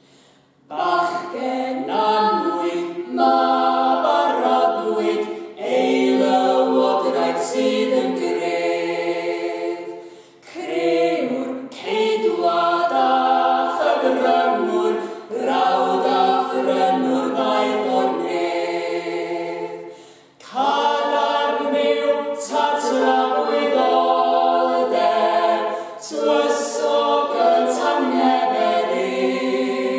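A Welsh plygain carol sung unaccompanied in parts by a small mixed group of three women and a man. It goes in long phrases of about ten seconds, with short breaks for breath between them.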